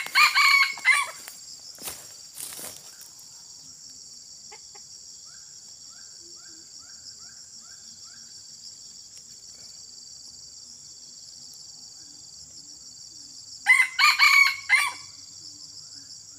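Red junglefowl rooster crowing twice. One short crow of about a second comes right at the start, and another near the end.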